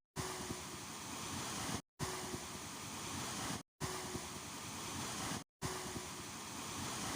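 Sea waves and wind in a short loop of about two seconds, repeated over and over with a brief dead silence between each repeat.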